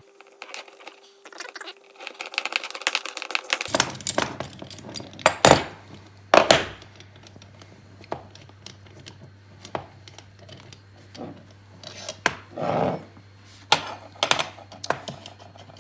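Metal hardware being worked by hand: a quick run of clicks early on, then scattered clinks and clanks as a steel bolt, sockets and spacers are turned, pulled out and set down on a cargo strap ratchet.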